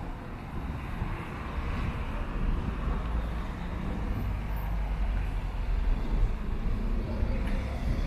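Steady outdoor background noise with a low rumble throughout, like traffic noise.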